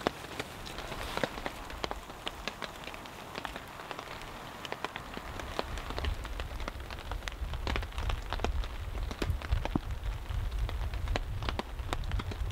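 Hail and rain hitting the tarp overhead as a dense run of sharp ticks over a steady hiss. A low rumble builds from about five seconds in.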